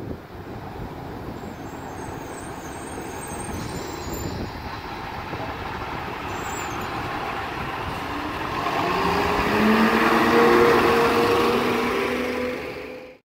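2019 Autocar ACX rear-loader garbage truck driving up and past, its engine running and tyres on the road growing louder as it nears. It is loudest about ten seconds in, where the engine's drone stands out, and the sound cuts off suddenly near the end.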